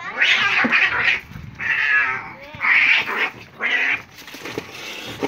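Two cats fighting, screeching and yowling in four loud, harsh cries over about four seconds, then quieter.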